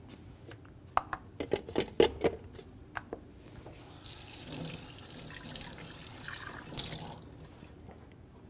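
A few sharp knocks of things set down at a kitchen counter, then a kitchen sink faucet running for about three seconds before it is turned off.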